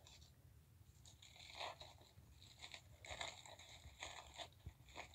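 Faint whispering in a string of short, breathy bursts.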